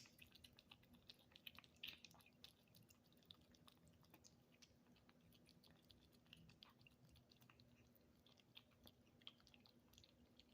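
Baby kittens eating tuna: faint chewing, heard as many small irregular clicks, several a second.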